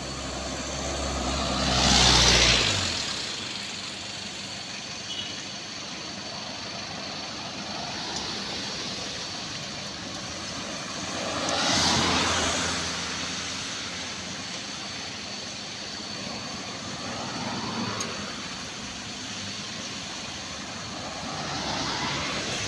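Road vehicles passing one after another, each pass a swell of engine and tyre noise that rises and fades; four passes, the loudest about two seconds in. A low engine hum underlies the start and stops after about two and a half seconds.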